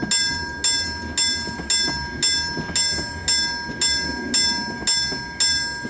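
A warning bell strikes steadily about twice a second, each strike ringing out and fading before the next, over the low rumble of a tram rolling slowly on its rails.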